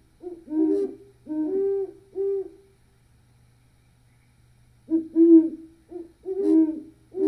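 A pair of great horned owls hooting in duet, the two birds' deep hoots at slightly different pitches overlapping. One bout of hoots is followed by a pause of about two seconds, then a second bout.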